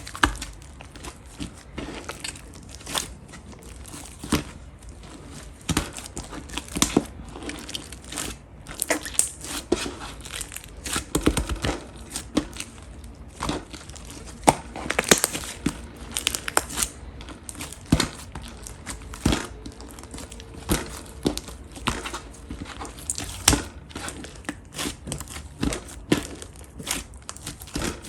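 Slime being squeezed and stretched by hand, giving a steady run of irregular sticky clicks, pops and crackles.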